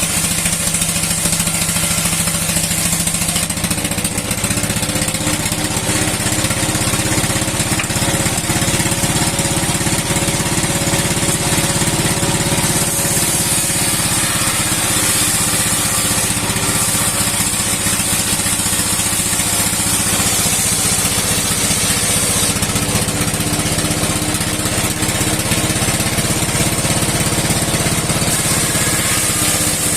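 Old sixty-year-old engine running steadily as it drives a steel saw blade splitting wood, with a high hiss that comes and goes several times.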